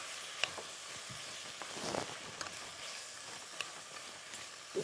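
Boiled macaroni with tomato sauce and oil sizzling in a pot on the hob, a steady frying hiss with a few faint clicks as it is stirred.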